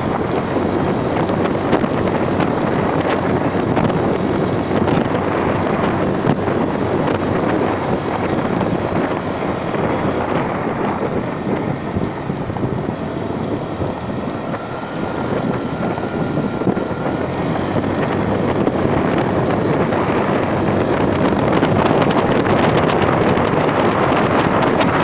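Wind buffeting the microphone, a steady loud rushing noise, easing slightly in the middle and picking up again near the end.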